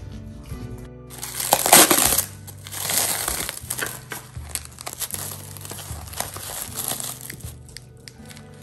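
Food packaging (plastic or foil) crinkling and rustling as it is handled, loudest a little over a second in, over background music.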